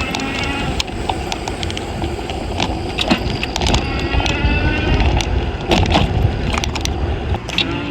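Car driving, heard from inside the cabin: a steady low road rumble with frequent small knocks and rattles.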